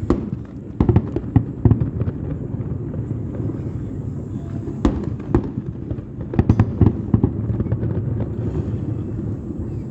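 Aerial fireworks shells bursting in irregular volleys of sharp bangs, with quick clusters about a second in and again around six to seven seconds in, over a steady low rumble.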